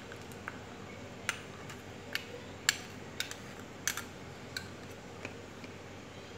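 Metal spoon clinking against a glass bowl while scraping it out: about a dozen sharp, irregular clicks, the loudest a little under three seconds in.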